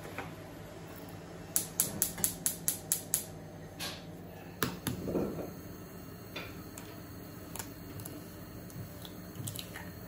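Gas hob igniter clicking rapidly, about eight clicks at some five a second, then a short rush as the burner lights. A few light clinks of the frying pan follow.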